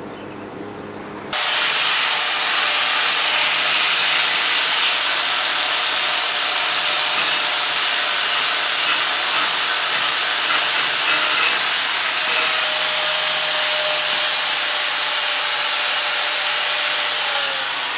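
Electric angle grinder with its disc held against a rusty steel tank, grinding the rust off the metal in a steady, harsh hiss that starts about a second in. Near the end a faint whine in it drops in pitch.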